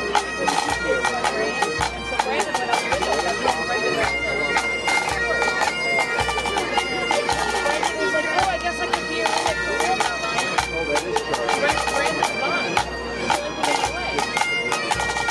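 Highland bagpipes playing a tune over their steady drones, with snare drums rattling quick strokes and a bass drum beating underneath.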